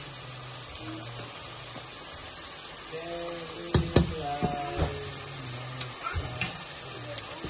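Chopped onions sizzling as they fry in an aluminium pot. A metal spoon stirring them clicks against the pot twice about four seconds in, with a few lighter taps after.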